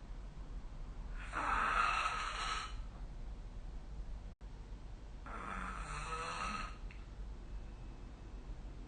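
A sleeping person snoring: two long snores about four seconds apart, each lasting about a second and a half.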